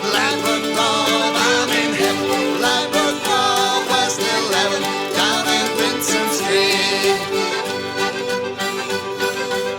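Folk dance band playing a lively tune, with accordion to the fore over fiddle and guitar.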